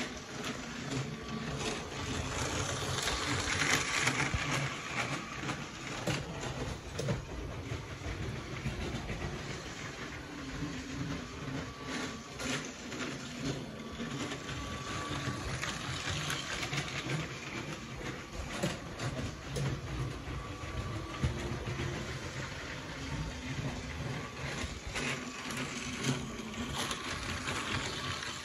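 Motorised Lego train running on its plastic track: a steady small-motor hum with scattered small clicks.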